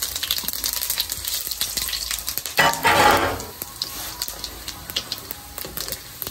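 Whole cumin seeds and other whole spices sizzling and crackling in hot mustard oil in an aluminium kadhai as they are stirred with a wooden spatula. A louder burst about two and a half seconds in, then the sizzle settles quieter.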